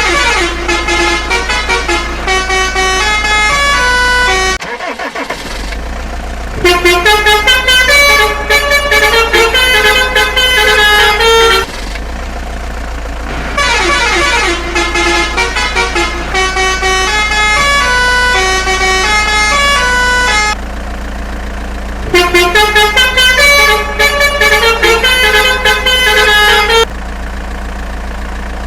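Electronic melody in a bright, horn-like tone: short stepped notes in repeating phrases with brief gaps between them, over a steady low hum.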